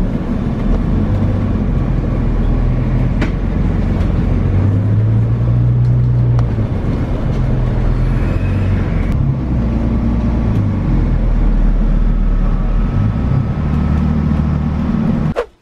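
City bus engine running, heard from inside the passenger cabin as a steady low drone whose pitch steps up and down several times as the bus drives on.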